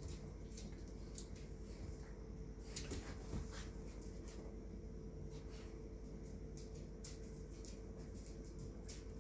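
Scattered light clicks and scuffs of a playing dog's claws and paws on a tile floor and a throw rug, with a busier patch about three seconds in, over a steady low hum.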